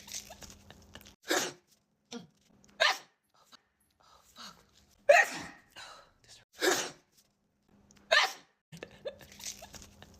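A woman sneezing again and again in a sneeze attack: five sharp, loud sneezes about a second and a half apart.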